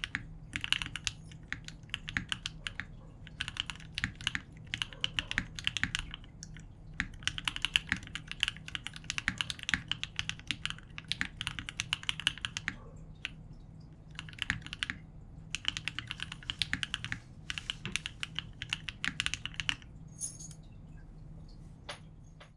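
Typing in bursts with short pauses on a mechanical keyboard fitted with lubed KTT Strawberry linear switches in an aluminium plate, o-ring mounted, with CRP R4 keycaps. The typing stops about 20 seconds in, with one last keystroke near the end.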